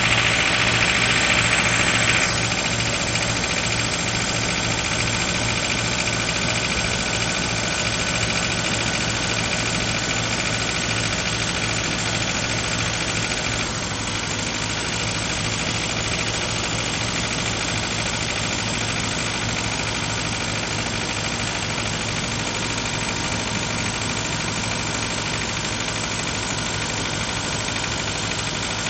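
Suzuki Escudo's G16A 16-valve four-cylinder engine idling after a night at −16 °C, with a knock that the owner takes, not firmly, for a cylinder-head knock. It gets a little quieter about two seconds in and again around fourteen seconds.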